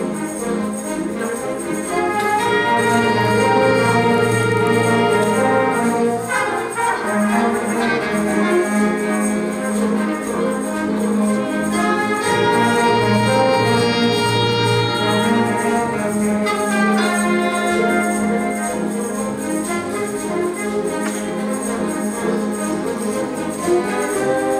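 Youth symphony orchestra playing a disco-style encore live, strings and brass together in loud sustained chords that shift every few seconds.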